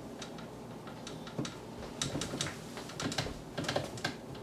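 Irregular light clicks and knocks of metal kitchenware: a stand mixer's beater and stainless steel mixing bowl being handled as finished cookie dough is taken out.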